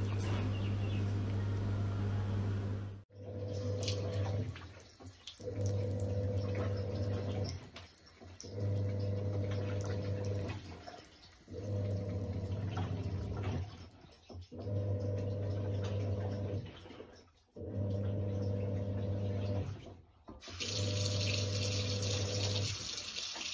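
Water running from a bathroom tap into a ceramic basin, over a steady low hum. From about three seconds in, the sound breaks off briefly about every three seconds.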